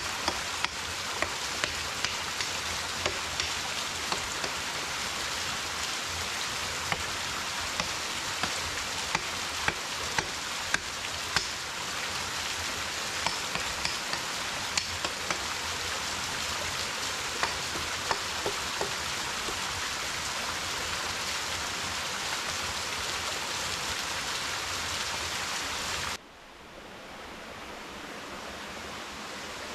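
Steady rain falling on forest foliage, with sharp drops ticking irregularly through the first half. Near the end the sound drops suddenly to a softer rush that slowly swells.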